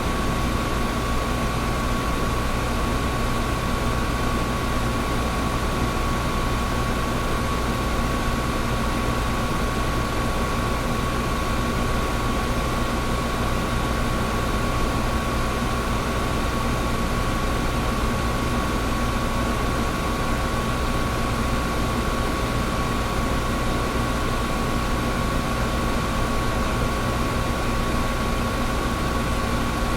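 Air conditioner running steadily: an even rushing hiss of moving air with a constant hum and a faint steady whine.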